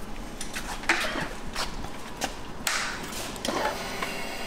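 A few short clicks and knocks with a brief rustle, from hands working on a motorcycle's handlebar controls.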